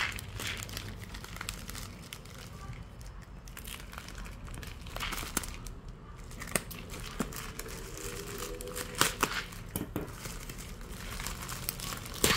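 A grey plastic shipping mailer being torn open and crinkled by hand: irregular crackling and rustling, with a few sharper rips.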